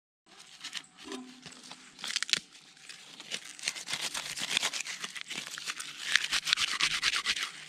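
Dry birch bark being torn and crumpled by hand as tinder and pushed into a folding metal twig stove: a dense, irregular crackling rustle that grows louder toward the end.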